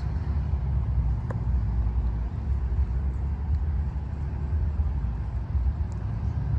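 Steady low outdoor rumble, a dull background drone that wavers a little in strength, with one faint tick about a second in.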